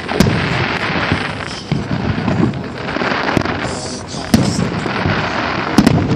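Aerial fireworks shells bursting in a display: a string of loud booms, one every second or so, each trailing off into a rumbling tail.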